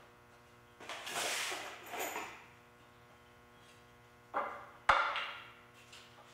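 Pine 2x4 boards being handled and set in place: a scraping rub of wood about a second in, then a knock and a sharp wood-on-wood clack just before the five-second mark.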